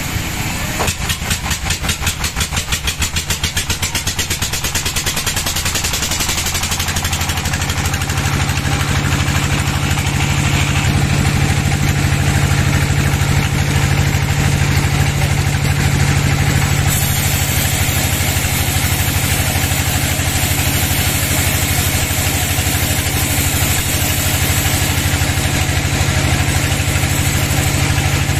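Band sawmill running and sawing lengthwise through a teak log: a mechanical drone that pulses rapidly at first, then about seven seconds in settles into a louder, steady low hum with a hiss of the blade cutting.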